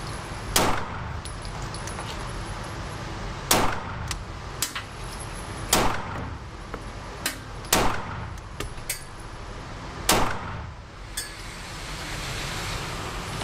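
Glock 43X 9mm pistol fired five times, slow aimed shots about two seconds apart, with fainter clicks between the shots. The firing stops a few seconds before the end.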